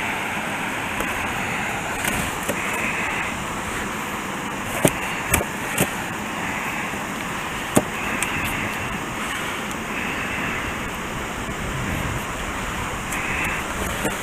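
Steady rush of water pouring over a spillway, with a few sharp clicks or knocks about five to eight seconds in.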